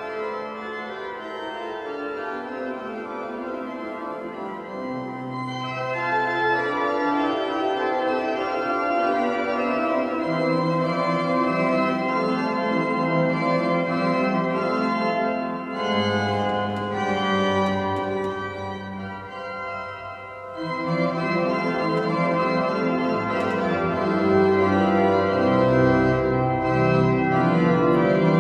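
Organ music: slow, held chords that change every few seconds, with a deep bass note coming in near the end.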